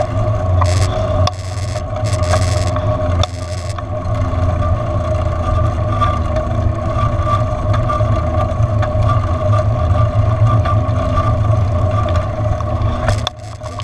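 Riding noise from a bicycle-mounted camera moving along a paved path: a steady heavy wind rumble on the microphone with a steady whine running under it. The sound dips briefly twice early on and drops off near the end.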